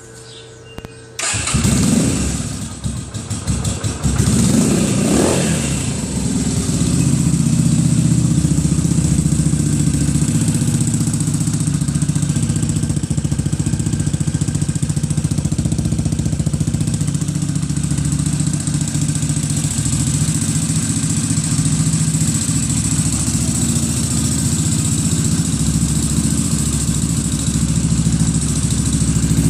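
Sundown V-Blade 250 V-twin motorcycle engine starting about a second in through an aftermarket Scorpion exhaust, the revs rising and falling twice as it catches, then settling into a steady idle.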